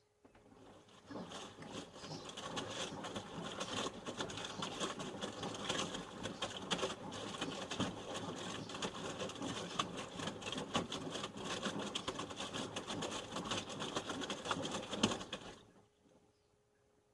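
Panasonic NA-147VB2 inverter washing machine's drum turning in a wash cycle, with laundry tumbling and splashing through the water in a dense patter of small knocks. It builds up in the first second, runs for about fifteen seconds, then stops suddenly as the drum comes to rest between turns.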